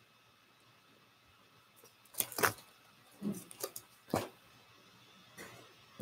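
Near silence, then from about two seconds in a few sharp clicks and soft knocks of items being handled and moved.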